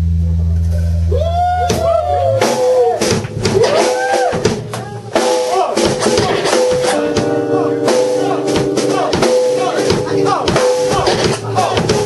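Live band music. A low note is held for about two seconds, then the drum kit comes in with a steady beat under sliding, bending melody notes.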